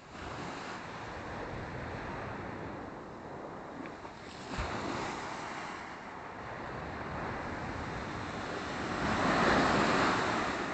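Small Black Sea waves breaking and washing onto the shore, swelling about four and a half seconds in and loudest near the end, with some wind on the microphone.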